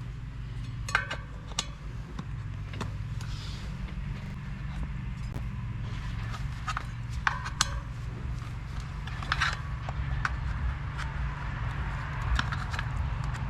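A stiff downhill-casing mountain bike tire being worked onto its rim by hand and with a plastic tire lever: scattered clicks, knocks and short rubbery creaks of the bead and lever, over a steady low hum.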